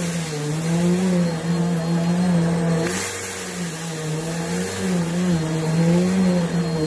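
Bissell PowerForce Helix Turbo upright vacuum running steadily over dusty carpet scattered with crushed dry noodles, its motor hum wavering up and down in pitch as the head is pushed back and forth, with a brief rush of airflow hiss about three seconds in.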